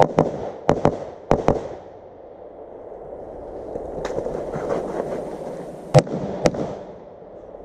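Rifle shots at an outdoor range: several sharp reports in quick, uneven succession in the first second and a half, then a lone one around four seconds in and two more near the end, the loudest about six seconds in.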